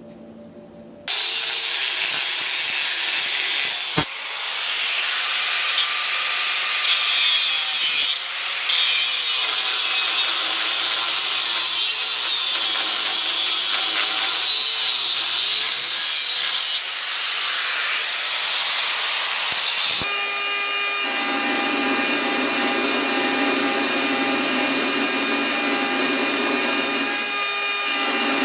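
Angle grinder grinding into steel, a loud steady hissing grind, starting about a second in. About two-thirds of the way through it changes to a belt grinder's small contact wheel grinding a steel piece: a steadier motor hum with the belt's rasp.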